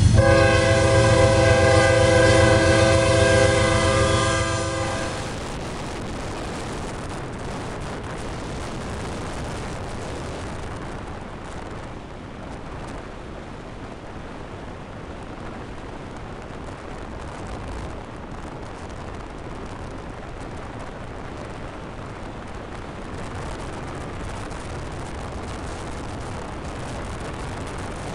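Freight train's air horn held as one long chord of several notes at once, cutting off about five seconds in. After that comes a steady rushing noise of driving alongside the moving train.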